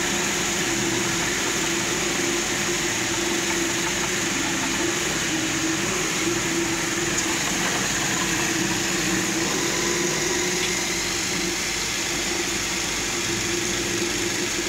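Electric potato slicing machine running, a steady motor hum with an even hiss.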